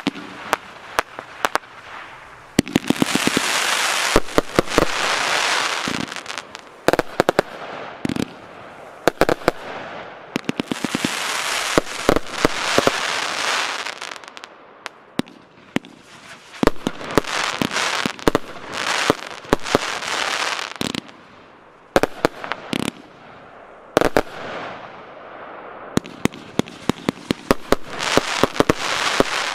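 A 138-shot 20/25 mm firework battery (Piromax PXC209 'Kalashnikov' cake) firing: sharp shots in quick runs, between stretches of dense crackling from the bursting effects that last a few seconds each.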